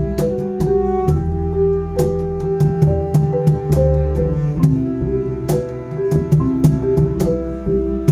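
Small live ensemble playing a hip hop arrangement: a flute melody over a bowed cello bass line, with sharp percussive hits keeping the beat.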